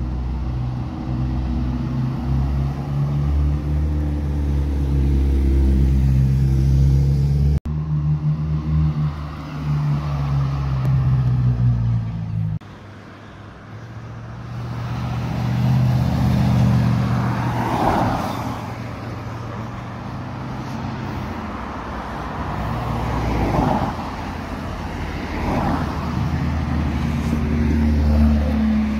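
Cars driving past one after another, their engines running with low, steady notes and then several separate rushes of engine and tyre noise as individual cars pass close by. The sound breaks off abruptly twice where clips are joined.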